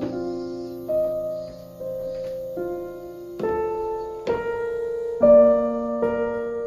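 Background piano music: a slow, gentle melody of single notes and soft chords, each struck and left to ring out.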